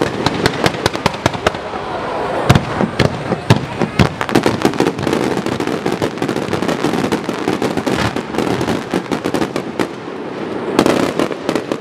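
Aerial fireworks barrage: dense, rapid crackling and popping with several louder booms about two and a half to four seconds in.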